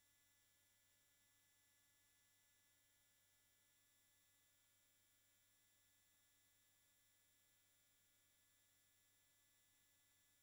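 Near silence: only a faint, steady electronic hum of the recording's noise floor.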